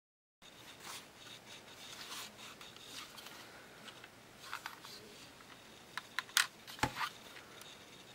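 Plastic Lego bricks clicking and rattling as a Lego toy revolver is handled. The sounds are faint at first, then a quick run of sharp clicks comes about six to seven seconds in.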